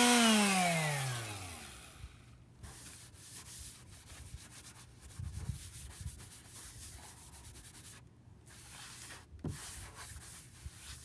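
A power sander's motor is switched off and winds down, its hum falling in pitch and fading over about a second and a half. After that come quieter, irregular rubbing strokes of fine 220-grit sandpaper on car primer, with small scrapes and clicks.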